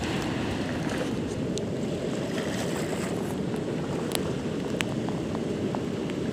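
Steady low rush of small sea waves washing over a pebble beach, mixed with wind on the microphone, with a few faint clicks in the second half.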